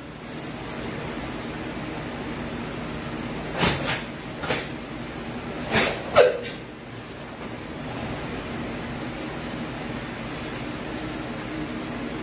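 Short, sharp swishes and snaps from a karate gi and bare feet on foam mats during kata techniques, about five in a cluster between four and six and a half seconds in, over a steady background hiss.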